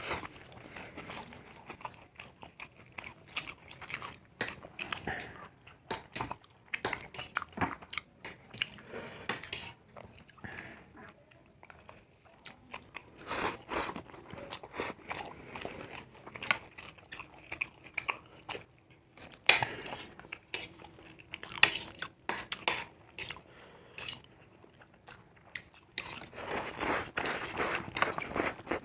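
People chewing mouthfuls of chow mein noodles close to the microphone, with many small irregular wet mouth clicks; the eating gets busier and louder over the last few seconds.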